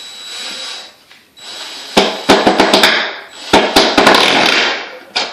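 DeWalt 20 V cordless impact driver driving screws into wood. The motor first spins briefly with a high whine, then the impact mechanism hammers in two loud rattling spells, about two seconds in and again near four seconds, as the screws bite.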